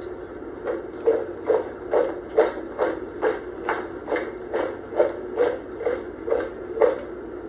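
Salad being tossed in a metal mixing bowl with one hand: about fifteen regular knocks of the vegetables and bowl, a little over two a second, stopping about seven seconds in.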